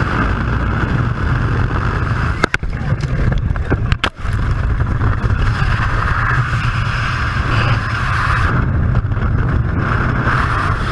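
Loud steady roar of rushing air and aircraft noise on a camera in flight. It is broken by two brief sharp crackles about two and a half and four seconds in.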